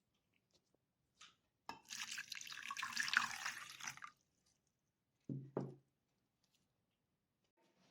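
Water running for about two seconds, then two short knocks close together.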